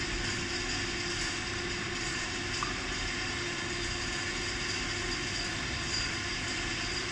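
Steady, even hum and hiss of background noise, with a faint constant tone running through it and no distinct strokes or clicks standing out.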